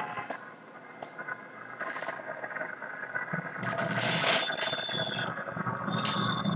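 Arena crowd noise at a jiu-jitsu match: spectators shouting and cheering, swelling about three seconds in, with a shrill whistle cutting through twice near the end.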